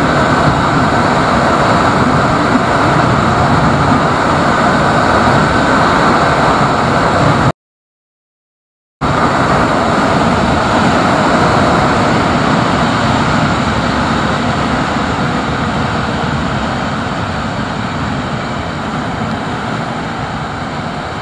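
Yezdi Scrambler motorcycle running flat out at about 125 km/h, its engine buried under heavy wind rush on the camera's microphone. The sound drops out completely for about a second and a half a little over seven seconds in, and grows gradually quieter over the last third as the bike slows.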